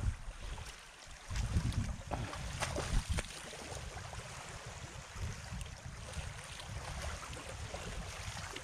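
Wind buffeting the microphone as a gusty low rumble, over small waves lapping at the shoreline. Several short splashes come between about one and three and a half seconds in, as hands go into the shallow water and feet wade through it.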